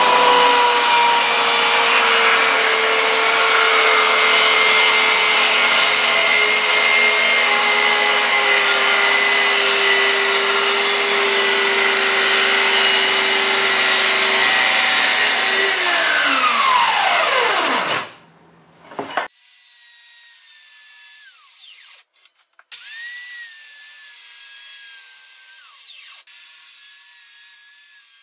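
Circular saw cutting through marine plywood, running steadily under load, then released and winding down with a falling whine about sixteen seconds in. After a short gap a much quieter saw runs in short spells near the end.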